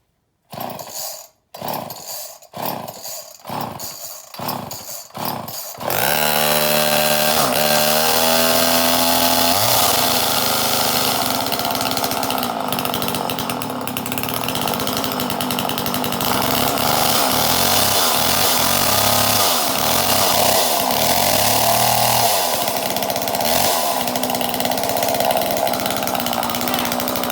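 Small two-stroke chainsaw being pull-started: about six quick pull strokes, then the engine catches about six seconds in and runs, the throttle revved up and down again and again.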